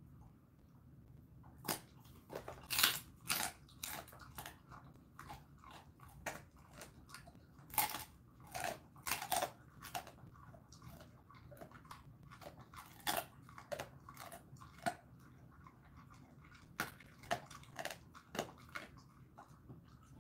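A Jindo dog crunching a dried chicken foot between its teeth: sharp, irregular crunches in quick clusters with short pauses between them, starting about two seconds in.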